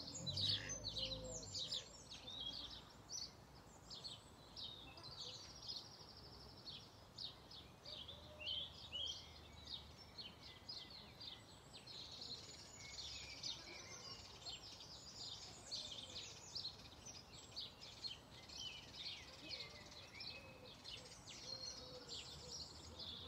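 Small songbirds singing and chirping almost without pause, a busy mix of quick high trills and short notes, over a faint steady outdoor background noise.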